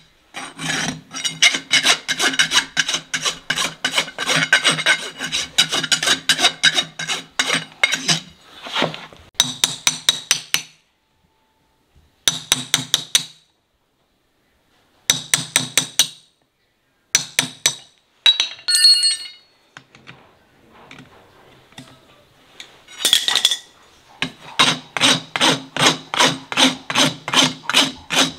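Farrier's rasp filing a horse's hoof in quick, even back-and-forth strokes, about three a second. The rasping comes in a long run, then several short runs broken by brief pauses, then a steady run again near the end.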